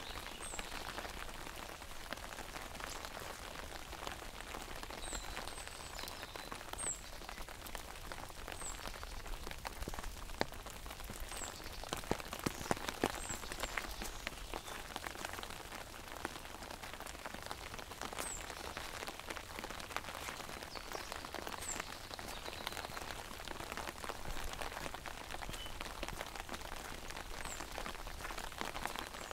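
Rain pattering steadily on an umbrella, a dense spray of small drop taps, with a few heavier drops about halfway through. A bird gives short, high, falling notes every few seconds.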